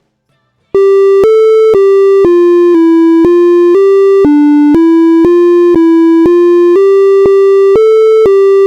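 A micro:bit alarm melody playing in MakeCode: a run of buzzy electronic beep tones, about sixteen evenly spaced notes at two a second, starting about a second in. This is the theft alarm going off after the micro:bit is shaken.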